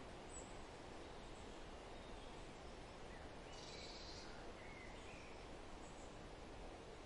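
Faint steady outdoor background noise with a few faint bird chirps, and a short high hiss about three and a half seconds in.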